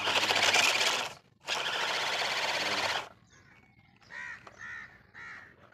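Plastic toy tractor and loaded toy trailer rolling over sand: a gritty scraping rattle of wheels on grit, in two bursts with a short break between them. After that, a crow cawing repeatedly, about two caws a second.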